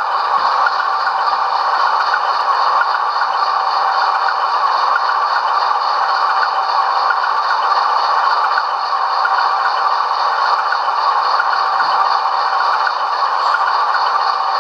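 LokSound DCC sound decoder in a model VIA Rail P42 locomotive, playing a diesel engine idling steadily through a small speaker. It comes out thin, with no deep bass.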